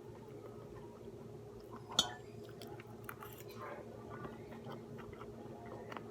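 A person chewing food close to the microphone, with small clicks and crackles and one sharp click about two seconds in, over a steady low hum.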